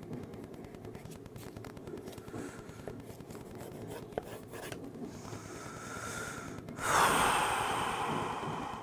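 Pencil scratching lightly on drawing paper. Then a breath drawn in, and about seven seconds in a sudden loud breath out that fades away.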